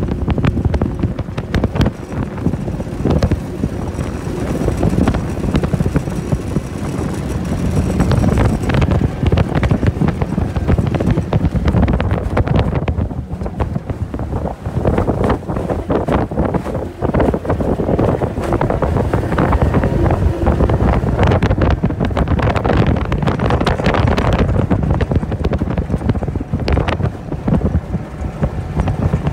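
Wind buffeting the microphone over a 25 hp Johnson outboard running under way, as a 14 ft aluminium jon boat slaps through wind-driven chop. The sound is loud and gusty throughout, with many short knocks from the hull.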